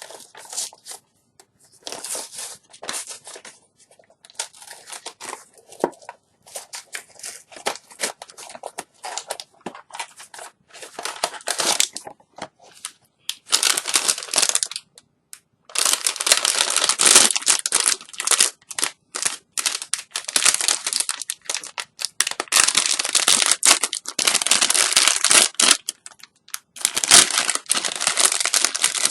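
Blind-box figure packaging being opened by hand: cardboard and plastic wrapping crinkled, crushed and torn in irregular bursts. The handling is sparse at first and becomes louder and almost continuous about halfway through.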